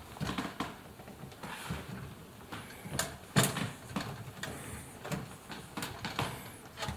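Hands working a wire retaining spring over a washing machine's rubber door seal: irregular clicks, knocks and rubbing, with short squeaks and one sharper click about three and a half seconds in.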